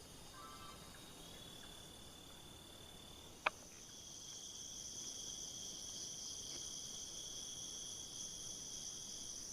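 Crickets chirring steadily in two high, unbroken tones, with one sharp click about three and a half seconds in.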